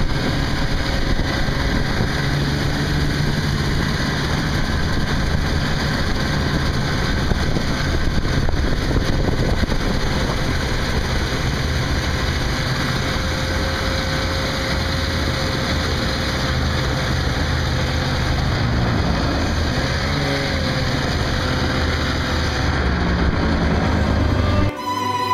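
Snowmobile engine running steadily as the machine rides across a snowy field.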